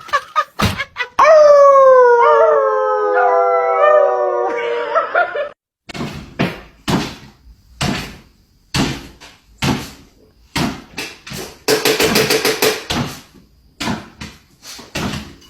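A dog howls: one long call, falling slowly in pitch, lasting about four seconds. Then comes a run of short, sharp sounds, about one a second.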